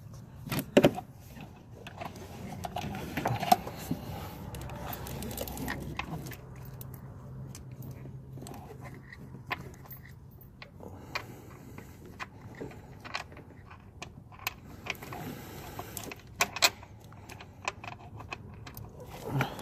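Scattered metallic clinks and taps of hand tools and fasteners being handled, with a low steady hum for a few seconds around the middle.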